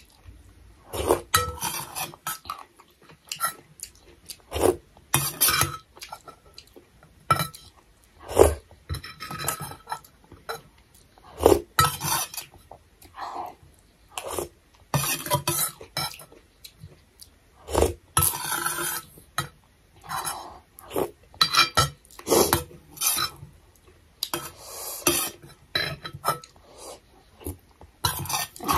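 Steel spoon clinking and scraping against a stainless steel bowl of thukpa noodle soup, in an irregular run of short clinks, mixed with the sounds of spoonfuls being eaten.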